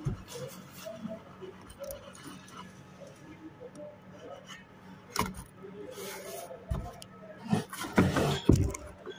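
Small metal steering parts clinking, tapping and scraping as they are handled, with a cluster of louder knocks and rattles near the end, over a faint low hum.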